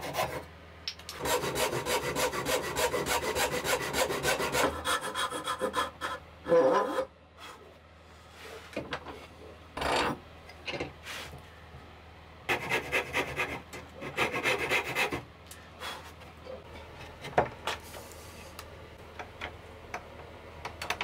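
Hand backsaw cutting joinery in seasoned cherry wood, a rapid run of short back-and-forth strokes for the first few seconds. Later come a few separate knocks and two more short runs of cutting strokes on the wood.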